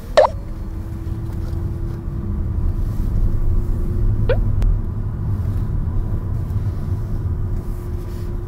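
Steady low rumble of a car in motion, heard from inside the cabin, with a faint steady hum. Two brief squeaks come through, one at the start and one about four seconds in.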